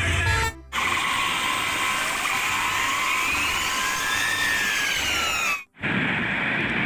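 A small motor whirring steadily, with tones that slowly rise and fall in pitch. It cuts out abruptly twice, about half a second in and again near the end.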